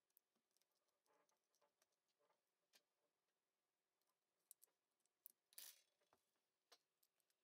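Near silence with faint, scattered clicks and taps of fingers and metal tweezers handling a smartphone's motherboard and shield plates as they are fitted into the frame, with one louder brief scrape about three-quarters through.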